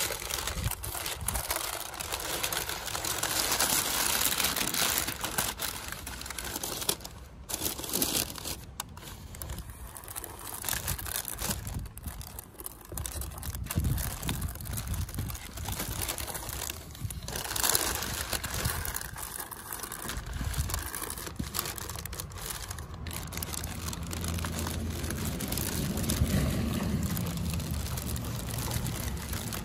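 Packing paper and plastic bags crinkling and rustling as a hand rummages through a cardboard box, in irregular bursts of handling noise.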